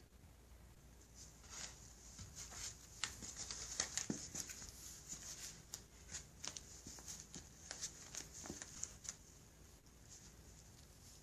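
A cat playing with a toy mouse: quick, light, irregular scratches, taps and rustles as its paws and the toy skid about. They come thickest through the middle and thin out near the end.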